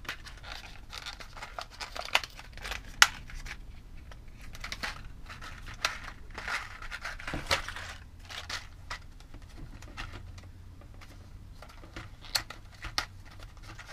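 A plastic-and-card retail pack of blade fuses being opened by hand: crinkling and tearing plastic with scattered sharp clicks, the loudest snaps about three seconds in and about seven and a half seconds in.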